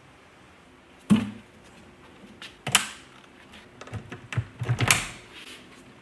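Knocks and clunks of things being handled at a charger cabinet and wall connector: one sharp knock about a second in, another near three seconds, then a quick cluster of clunks around four to five seconds.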